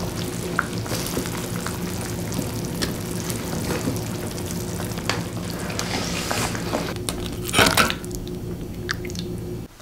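Serving sounds: cooked rice scooped from a rice cooker's inner pot with a plastic paddle, then kimchi stew ladled into a small pot with dripping and splashing liquid. There is a louder clatter about seven and a half seconds in, over a steady low hum.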